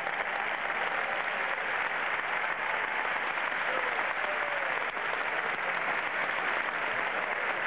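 Crowd applauding in a steady, dense clatter, with a few voices shouting over it.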